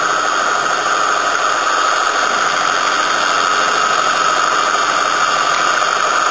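JMD-1 milling machine running steadily, its spindle turning a 2 mm end mill that is cutting a groove in the floor of a square pocket in a duralumin ball.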